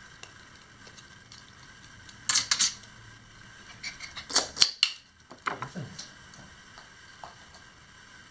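Hard plastic clicking and rattling from a push-button dog treat dispenser as a dog presses its button, in three short clusters of sharp clicks about two seconds in and again around four to six seconds.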